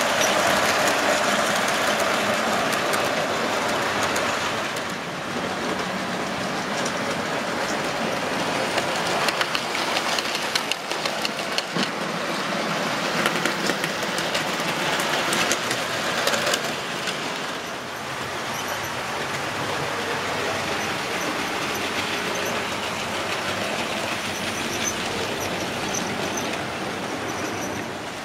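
Model railway trains running on the layout track: a steady rumble of small wheels and motors. A run of rail clicks comes in the middle as a model steam locomotive passes close.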